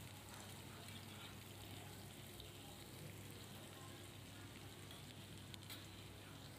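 Faint, steady sizzle of chopped onions frying in hot oil in a nonstick kadai, with a light click near the end.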